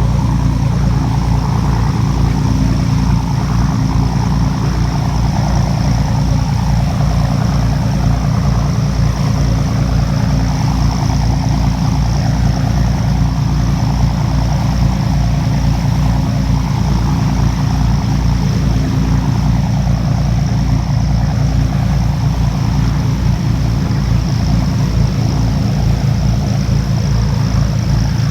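The engine of a small passenger cruise boat running steadily under way, a loud low throb heard from on board, with a faint steady high whine above it.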